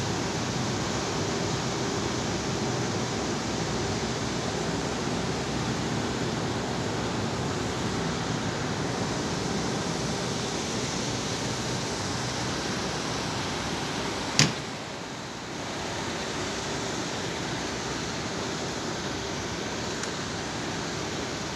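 Large axial fans of a corn dryer tower running, a steady rushing whir with a faint low hum. A single sharp click comes about two-thirds of the way through, after which the noise briefly dips.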